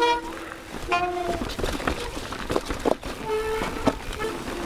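Mountain bike disc brakes squealing in short horn-like tones, one about a second in and a longer one after about three seconds, over the clatter and knocks of the bike rolling down a rocky trail.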